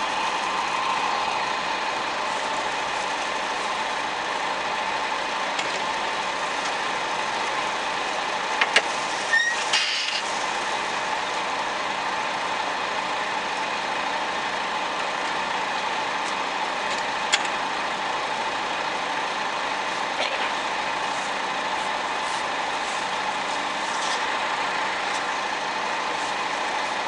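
Steady drone of a John Deere 3300 combine running with its unloading auger engaged, heard from inside the cab. A few sharp clicks come about nine seconds in and again a little past seventeen seconds.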